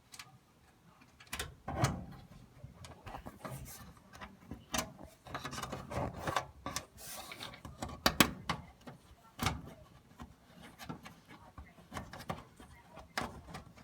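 Irregular metallic clicks, knocks and scrapes as a dryer's sheet-metal cover panel and its screws are handled and fitted back in place by hand, with no power tool running. The loudest knocks come about two seconds in and again about eight seconds in.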